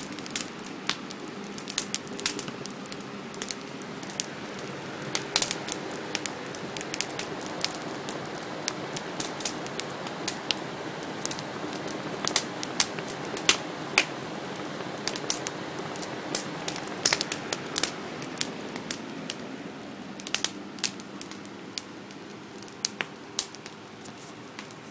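Wood campfire crackling, with sharp pops at irregular intervals over a steady hiss.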